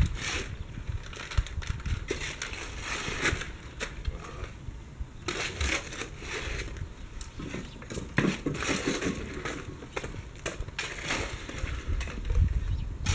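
Irregular crunching, scraping and light clattering of hands-on work on a timber gate post, with a low rumble underneath.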